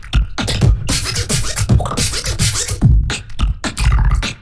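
Human beatboxing: a fast rhythm of vocal kick drums with deep bass notes that fall in pitch, mixed with snare and hi-hat clicks.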